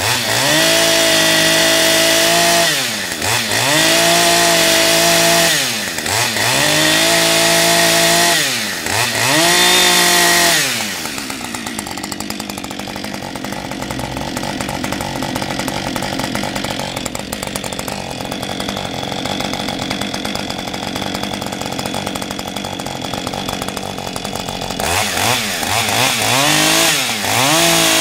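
Husqvarna 550 XP single-cylinder two-stroke chainsaw revved to full speed and held four times in a row, its pitch dropping back between each, while the chain's oiler is tested. It then settles to a steady idle for about fourteen seconds and is blipped up to speed a few times near the end.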